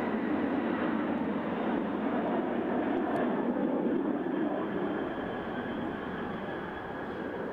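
Jet engine noise of a Boeing 747 Shuttle Carrier Aircraft flying past: a steady, dull rumble that fades a little over the last couple of seconds.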